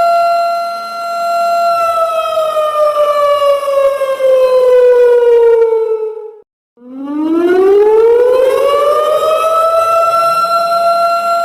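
Siren alarm sound effect: a steady tone holds for about two seconds, then slowly falls in pitch for about four seconds, cuts out for a moment, and rises back up to the same steady tone.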